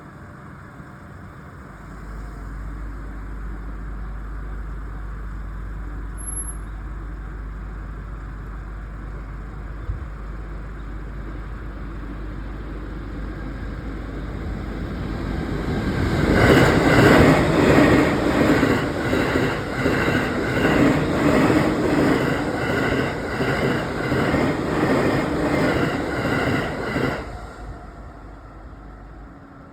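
Shonan-Shinjuku Line electric train running past the level crossing. It builds up from about 14 s in, is loudest for roughly ten seconds with an even, repeating clatter of wheels over the rails, and then cuts away quickly.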